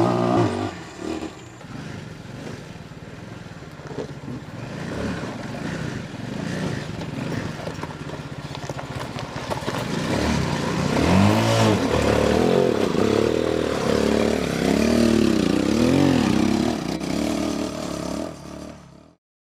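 A 250cc 4x4 ATV's engine running, quieter for several seconds, then revving up and down repeatedly from about ten seconds in before the sound cuts off suddenly near the end.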